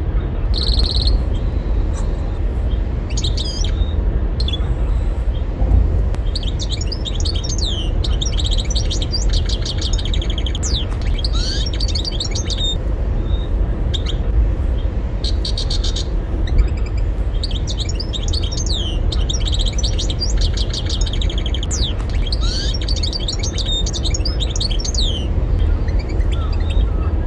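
European goldfinch singing: phrase after phrase of rapid twittering and trills with quick sweeping notes, over a steady low rumble.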